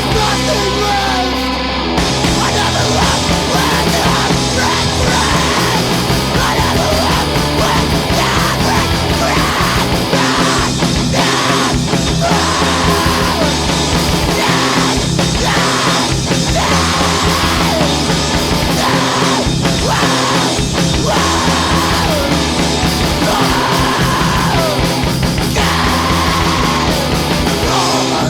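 Loud, heavy rock music from a band, with yelled vocals over it.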